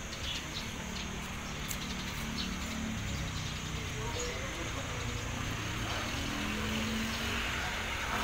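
Diesel locomotive engine running at a distance during coach shunting: a steady low rumble, with a faint engine hum that grows stronger after the middle.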